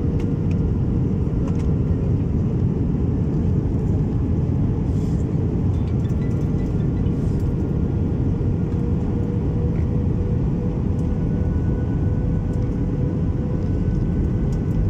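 Airliner cabin noise during landing: a steady deep rumble of jet engines and rushing air, with a constant hum tone running through it.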